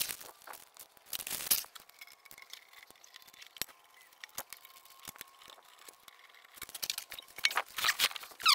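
Plastic packaging rustling and sharp clicks as the bottom wiring-compartment cover of a hybrid inverter is worked loose and lifted off by hand. There is a burst of rustling about a second in, scattered light clicks, then a longer run of rustling and handling noise near the end.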